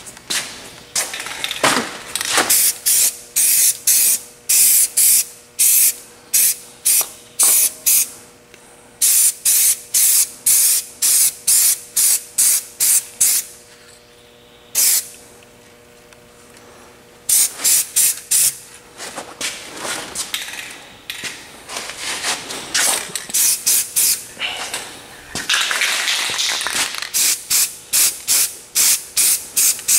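Paint being sprayed in short hissing bursts, about two a second, with a pause around the middle and a few longer blasts later on: touch-up painting.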